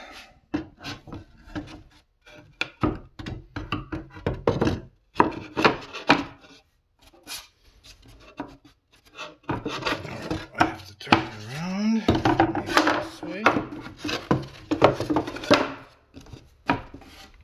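Plywood boards being set and shifted into a wooden frame by hand: irregular wooden knocks and board rubbing against board.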